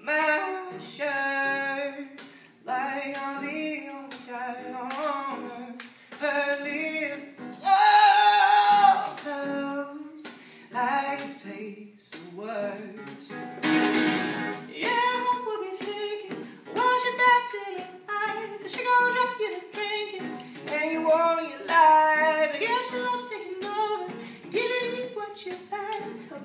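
Acoustic guitar played live with a voice singing a melody over it.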